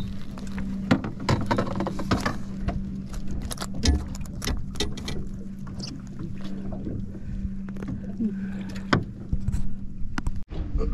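A steady low hum from the boat runs under a string of sharp knocks and taps as a hooked sheepshead and its egg sinker are brought up over the side of a fiberglass boat and handled at the gunwale.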